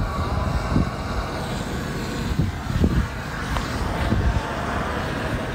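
Wind buffeting the microphone: an irregular low rumble over a steady outdoor rush.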